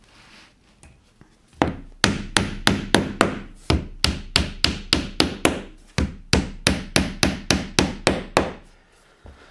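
Rapid hammer blows, about four a second, from a one-piece steel Bosch hammer driving wooden dowels into holes in a beech board. The blows start about one and a half seconds in, pause briefly twice, and stop shortly before the end.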